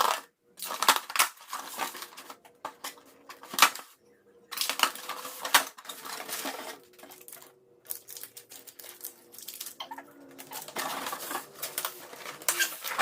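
Cardboard shipping boxes being handled and opened: an irregular run of knocks, clicks, scrapes and rustling of cardboard and packing material.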